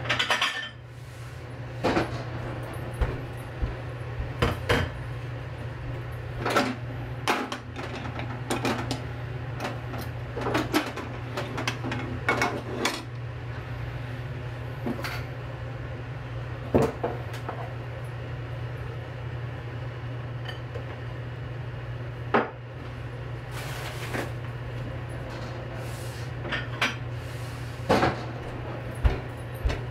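Kitchen clatter: scattered clinks and knocks of dishes and utensils being handled, at irregular intervals over a steady low hum.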